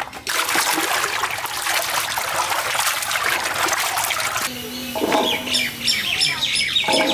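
Cut vegetable pieces tipped from steel bowls splash into a large metal pot of water, followed by hands sloshing and rinsing them in the water. In the last two seconds, birds chirp with short repeated calls.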